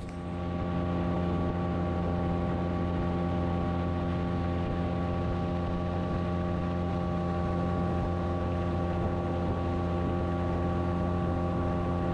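Small outboard motor running steadily under way, its pitch holding even, over a steady rush of water and wind.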